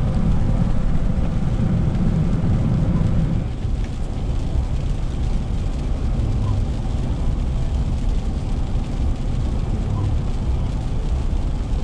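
Road noise inside a moving car: a steady low rumble of engine and tyres on a wet road, easing a little about a third of the way in. The windshield wipers make a brief sweep about every three and a half seconds.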